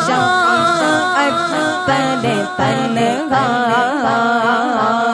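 A man singing an Urdu naat in a slow, ornamented melody, the voice wavering and sliding between notes on long held words.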